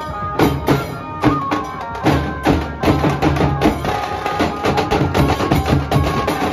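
A Nashik dhol troupe playing: several large barrel dhol drums beaten with sticks, with brass hand cymbals, in a loud rhythm of sharp cracks over deep booms. The beat gets denser and steadier about three seconds in.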